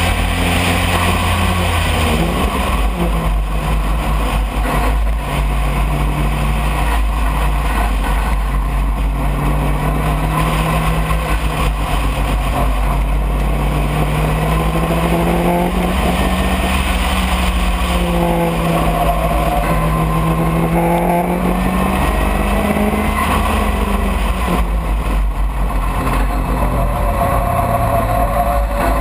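Open-cockpit sports racing car's engine heard from on board at racing speed, its revs rising and falling several times through the corners over a steady low rumble.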